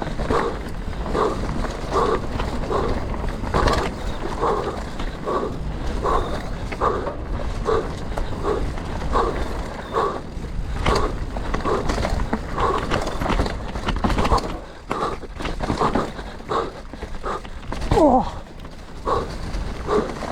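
A mountain biker breathing hard and rhythmically, about two breaths a second, over the steady rumble of tyres and wind on the trail. A short falling squeal comes near the end.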